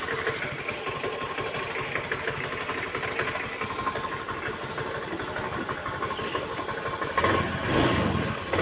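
Motorcycle engine, freshly rebuilt with an oversize bore, idling with a clattering 'klotok-klotok' knock, which the mechanic puts down to a housing mount and its bushings. It gets louder about seven seconds in.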